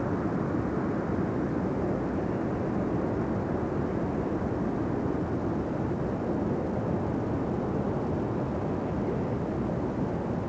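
Steady rushing roar of Niagara Falls' falling water, an even, unbroken noise with no rise or fall.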